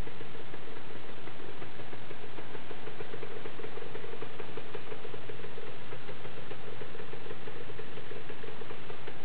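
Suzuki TS125N's single-cylinder two-stroke engine idling steadily, a rapid, even pulsing.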